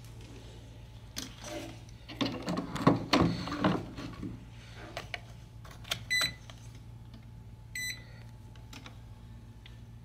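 Clattering handling noise as a digital multimeter and its test leads are picked up and set out. Then the UNI-T UT60D multimeter gives two short high beeps, about a second and a half apart, as its rotary selector is turned. A steady low hum runs underneath.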